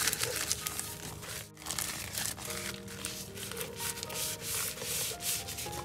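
A sheet of dry nori seaweed crinkling and crackling in short rustles as gloved hands fold it and press along the crease, over soft background music.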